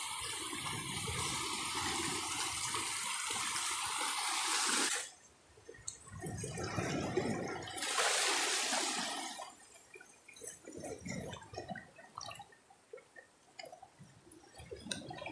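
Shallow seawater sloshing and swishing as someone wades and sweeps a scoop net through it. The rushing stops abruptly about five seconds in, comes back briefly a few seconds later, then gives way to light drips and small splashes.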